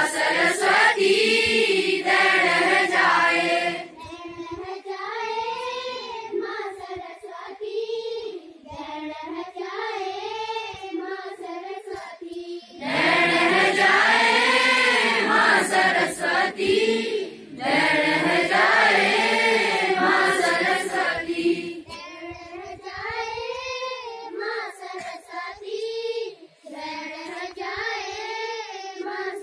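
A large group of schoolchildren singing a prayer to the goddess Saraswati together, unaccompanied. The singing is loud at the start, drops softer after about four seconds, swells loud again around the middle, then falls back softer near the end.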